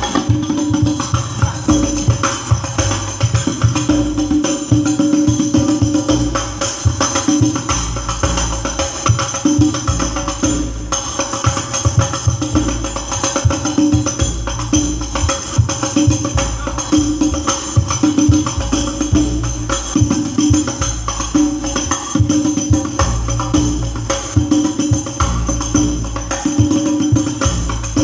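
A rebana (hadroh) frame-drum ensemble plays a steady, busy rhythm through a PA system during a sound check, with jingling tambourine-like strikes over deep, repeated bass-drum strokes.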